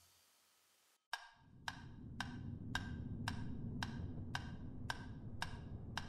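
Quiet, steady ticking, a little under two ticks a second, starting about a second in after a moment of silence, over a low room hum.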